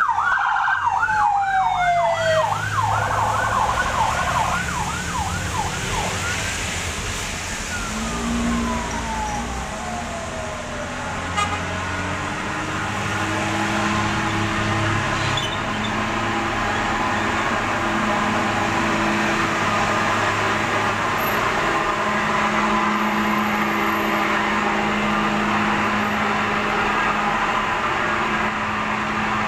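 A siren yelps rapidly for the first few seconds as a police motorcycle escort with blue lights passes, then winds down in a slower falling wail by about ten seconds in. After that, heavy diesel dump trucks run past in slow traffic: a steady low engine drone with tyre hiss on the wet road.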